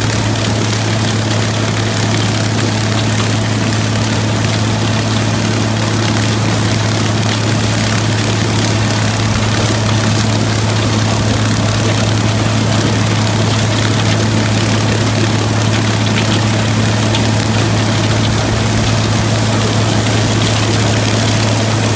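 Farm machine engine running steadily, a constant low drone with a rushing noise over it and no change in speed.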